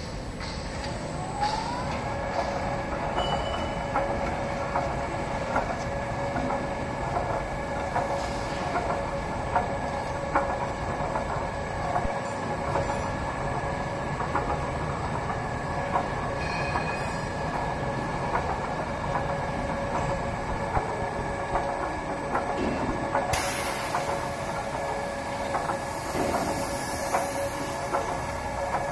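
Turntable stretch-wrapping machine running: its drive motors whine steadily after gliding up in pitch as they come up to speed about a second and a half in, over a mechanical rumble with many small clicks. A hiss joins in about 23 seconds in.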